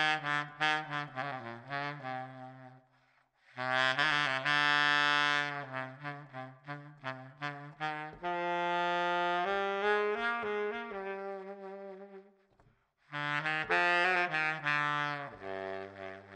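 Baritone saxophone playing a melody in phrases of long held notes and quicker runs, breaking off briefly about three seconds in and again near the twelve-second mark.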